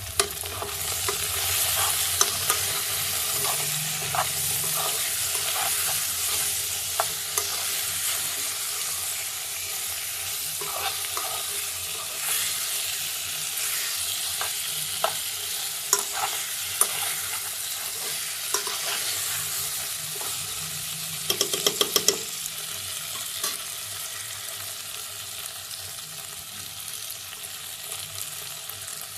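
Food sizzling as it fries in a pan, stirred with a utensil that scrapes and taps against the pan now and then, with a quick run of taps about three-quarters of the way through.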